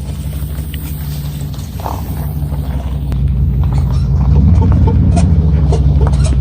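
Tractor engine running steadily, getting louder about three to four seconds in.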